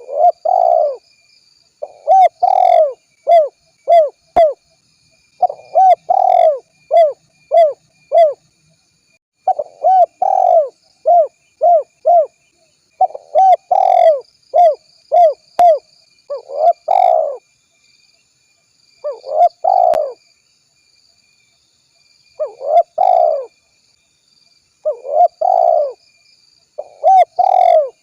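Spotted dove cooing in repeated phrases: each phrase opens with a longer, louder coo followed by three or four short, quick coos, and the phrases come every few seconds with brief pauses between them.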